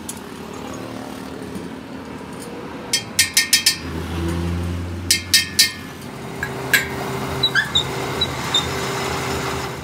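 Two quick runs of sharp metallic clicks, as the chuck key works the lathe's three-jaw chuck to clamp the motorcycle wheel hub. Under them and after them the lathe runs with a steady hum, spinning the spoked wheel.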